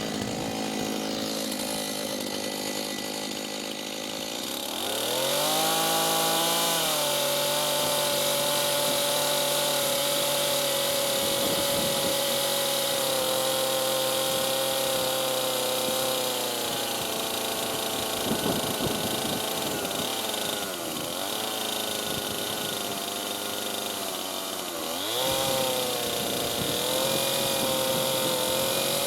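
Two-stroke chainsaw idling, then revved up about five seconds in and held at high speed while cutting a log. Its pitch dips and recovers a few times, and it revs up again near the end.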